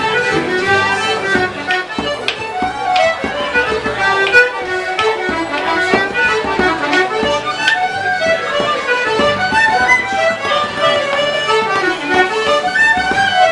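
Traditional Irish session tune: tin whistles playing a running melody, with scattered beats of a bodhrán struck with a tipper.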